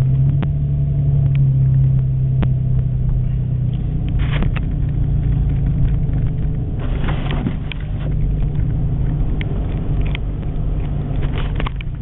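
Cabin sound of a Toyota FJ driving in four-wheel drive along a snow-covered road: a steady low engine drone and tyre rumble, easing a little after about four seconds, with scattered clicks and knocks.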